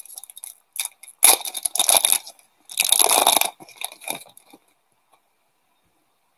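Foil trading-card pack wrapper crinkling and tearing open in the hands, in two loud rustling bursts about a second in and around three seconds in, then dying away.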